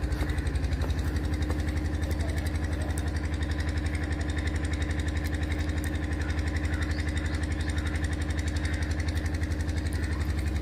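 An engine running steadily with an even, rapid throb.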